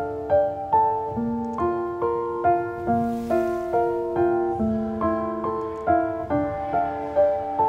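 Background piano music: a slow melody of single struck notes that ring on over one another.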